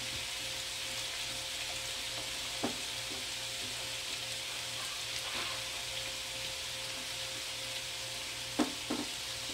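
Beaten eggs sizzling steadily in a hot nonstick frying pan while a silicone spatula works them into an omelette. A light knock sounds about two and a half seconds in, and two sharper knocks come close together near the end.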